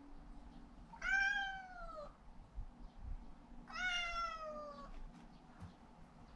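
Domestic cat meowing twice, each meow about a second long and falling in pitch. It is begging to have the door opened.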